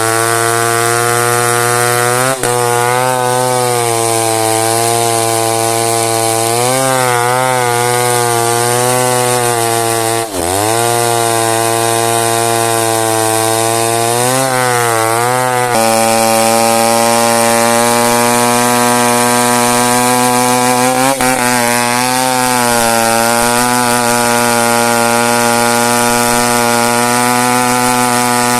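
Two-stroke chainsaw running flat out while cutting dense merbau hardwood. Its pitch sags briefly several times as the chain bites under load, most deeply about ten seconds in, then recovers.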